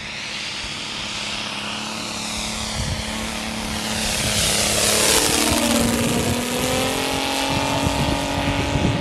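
Saito FG-60R3 three-cylinder radial gas engine of a giant-scale RC warbird model in flight, flying past: its drone grows louder to a peak about halfway through, and its pitch drops as it goes by.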